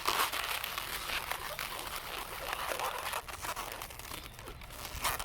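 Latex twisting balloon being twisted and worked by hand, a continuous scratchy rubbing and squeaking of rubber, slightly quieter about four seconds in.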